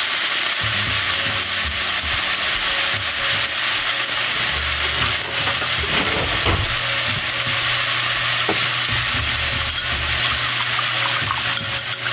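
Cabbage-and-meat egg-roll filling sizzling steadily in a frying pan on a hot burner.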